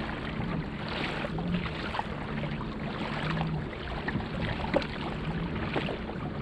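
Pedal-drive fishing kayak moving along, water swishing at the hull. A low hum from the pedal drive swells about once a second, with a few faint ticks.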